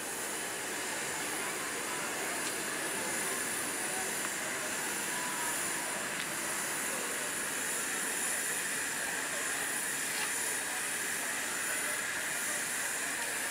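Steam hissing steadily from a miniature steam locomotive, an even hiss with no exhaust beats.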